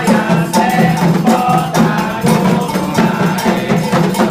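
Candomblé ritual percussion: atabaque hand drums led by the rum, with an iron bell (agogô), playing a steady, fast rhythm.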